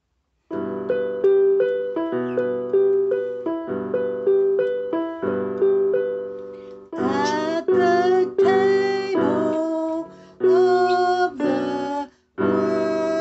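Piano accompaniment playing the introduction to a hymn-like song, starting about half a second in with repeated chords. About seven seconds in, a gliding, wavering melody line joins over the piano.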